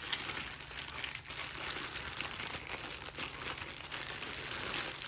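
Zip-top plastic bag crinkling continuously as it is shaken and squeezed in the hands to coat the crappie pieces inside with mustard.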